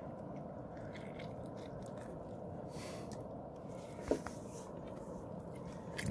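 Faint scrapes and clicks of a knife cleaning a small fish on a wooden board, over a steady low background rush. A brief faint squeak comes about four seconds in.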